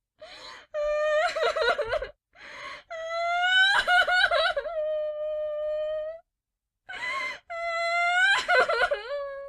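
A person crying hard. Three times, a short gasping breath in is followed by a high wail that rises, breaks into a wavering sob, then holds a long steady note.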